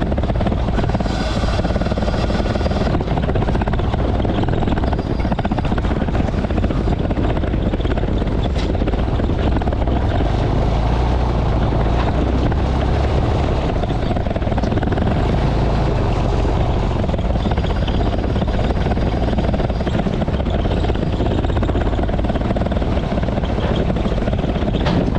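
Delivery truck running: a steady, loud engine drone with road noise.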